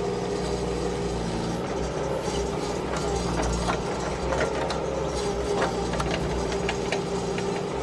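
Excavator's diesel engine running steadily, with scattered light clanks and knocks from the machine as it works.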